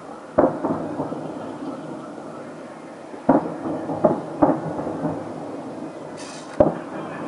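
Distant fireworks salute: aerial shells bursting with booms that echo, three about half a second in, three more from about three to four and a half seconds, and one near the end, with a brief hiss just before the last.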